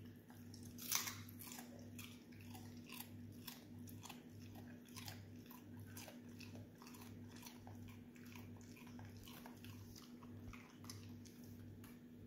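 An Australian shepherd chewing a raw carrot: a run of soft crunches and wet clicks, the sharpest about a second in.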